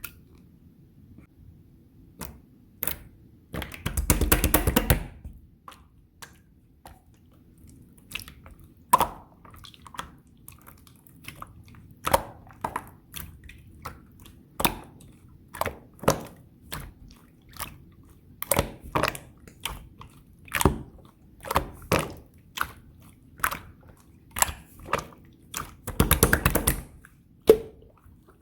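Thick, chewy slime being pressed and pulled by hand: irregular sticky pops and clicks, with two longer bursts of crackling about four seconds in and near the end.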